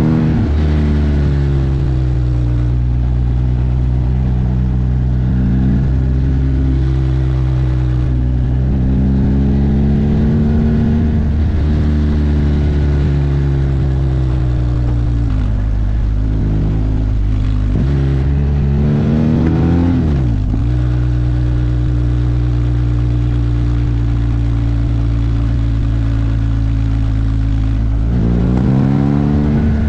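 Yamaha TDM900's parallel-twin engine under way, holding steady revs for long stretches. Its pitch rises and then drops sharply at gear changes a few times, most clearly about twenty seconds in.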